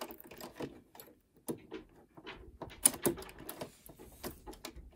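A few light clicks and knocks as a button-sewing presser foot is snapped onto the presser-foot holder of a Brother Innovis sewing machine. The sharpest click comes about three seconds in.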